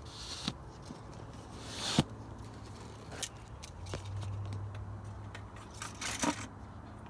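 Handling noise: rustling and scraping with scattered clicks, a sharp knock about two seconds in and a cluster of scrapes about six seconds in, with a brief low hum around four seconds in.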